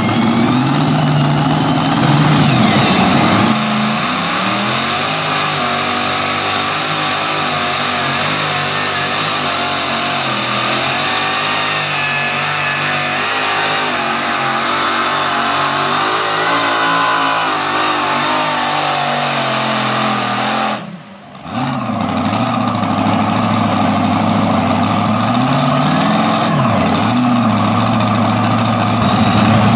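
Modified super stock pulling tractor engines running hard at high revs, the pitch rising and falling as the tractor drags the weight-transfer sled. The sound cuts out briefly about two-thirds of the way through, then the engine comes back.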